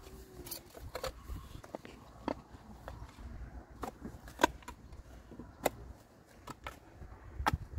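Metal spade digging into soil packed with broken bricks: irregular sharp knocks and scrapes as the blade strikes and levers out brick and earth, roughly two a second.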